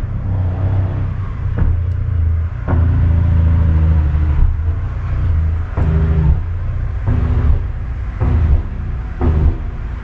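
An engine running with a steady low rumble, its pitch shifting a few times, with short knocks now and then.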